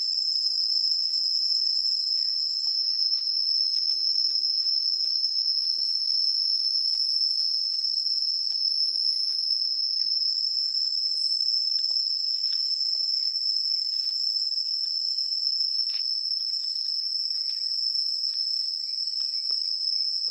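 Insects, crickets or similar, calling in a continuous high-pitched chorus, one steady unbroken trill, with faint scattered ticks beneath it.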